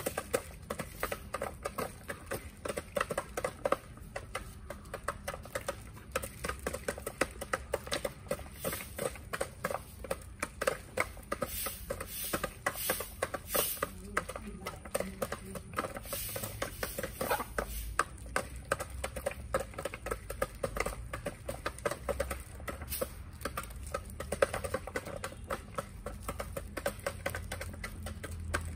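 Chickens pecking feed at a plastic feeder: rapid, irregular beak taps, several a second.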